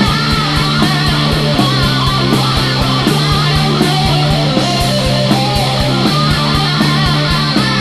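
Instrumental passage of a heavy rock song: electric guitar and bass over drums, with a fast, steady kick-drum beat and cymbals and no vocals.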